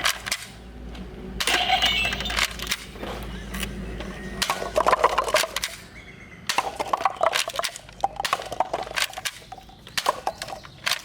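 Toy guns firing in bursts of rapid clicking and rattling, some bursts carrying a ringing electronic tone, with short pauses between them.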